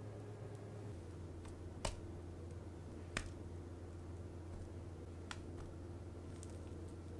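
Quiet room tone with a steady low hum, broken by two sharp clicks about two and three seconds in and a fainter one near the end.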